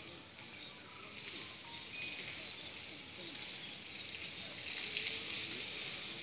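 Water jetting from a garden hose and splashing onto an elephant's back, a steady hiss, with a few short high chirps over it.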